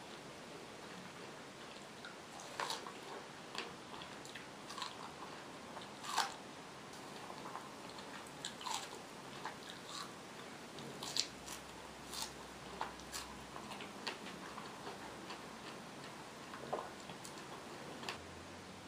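Close-miked eating sounds: a person biting and chewing food, with irregular, scattered mouth clicks and smacks.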